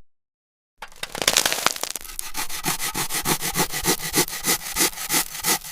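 Abrasive scrubbing of rust off a toy robot's metal body, rapid back-and-forth strokes. It starts after a brief silence about a second in and settles into a steady rhythm of about three strokes a second.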